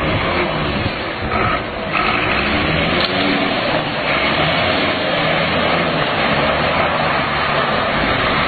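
Heavy flatbed crane truck's engine running and revving steadily as the truck slides round on ice and pulls away, with a constant rushing noise over it.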